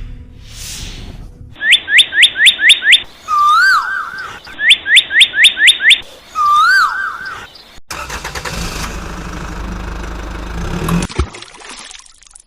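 Electronic sound effects: two runs of six quick rising chirps, each run followed by a short warbling tone. After that comes about three seconds of loud rumbling noise, which cuts off sharply and leaves a brief hiss.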